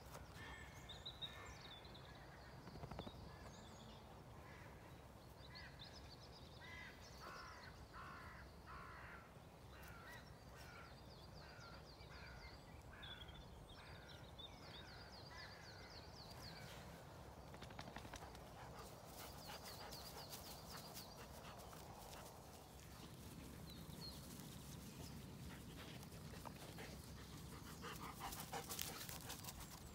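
Faint outdoor ambience of crows cawing, a run of about a dozen repeated calls, with thin birdsong higher up and a brief rustle near the end.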